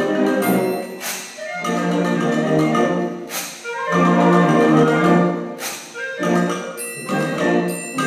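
Concert band of woodwinds and brass playing a brisk light-classical piece that uses a typewriter as a percussion instrument. Three short swishes, roughly two seconds apart, cut across the band, the first set off by a high bell ding: the typewriter's bell and carriage return.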